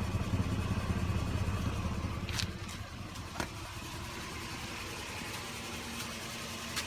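Car engine idling steadily, louder for the first couple of seconds and then quieter, with a few sharp clicks.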